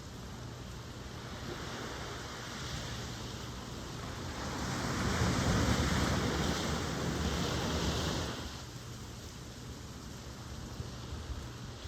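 Ocean surf: a wave swells in about four seconds in, washes loudly for a few seconds with a low rumble and a hiss, then subsides back to the steady background wash.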